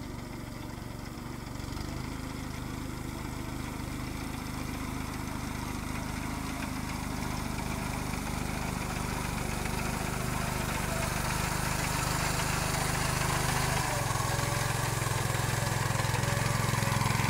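Engine of a walk-behind rice reaper running steadily as it cuts standing paddy, getting louder as the machine comes closer. Its note changes and grows stronger about fourteen seconds in.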